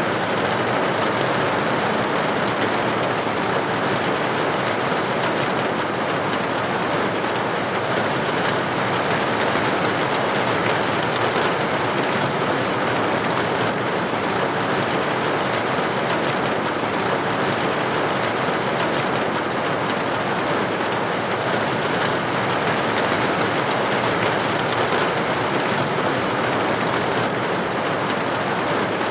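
Steady rain falling on a roof, a dense, even patter.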